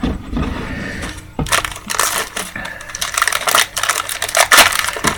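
Wrapper of a pack of football trading cards crinkling and tearing as the pack is opened, a run of sharp irregular crackles that starts about a second and a half in.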